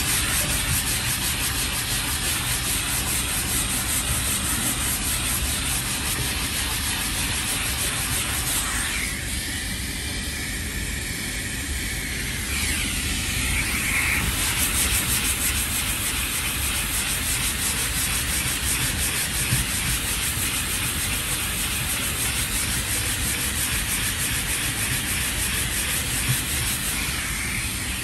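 Body filler on a car door being hand-sanded with a 3M sanding block and sandpaper: steady, rapid back-and-forth rasping strokes, over a continuous rush of air from the dust-extraction hose on the block.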